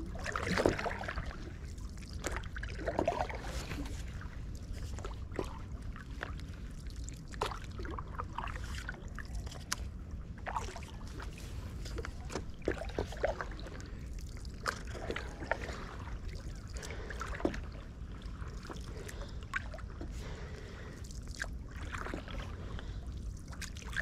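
Stand-up paddleboard paddle dipping into still canal water, with irregular drips and small splashes from the blade over a steady low rumble.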